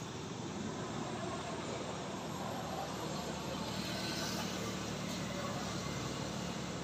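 Steady drone of a distant engine over a noisy background, a low hum that grows slightly louder about two seconds in.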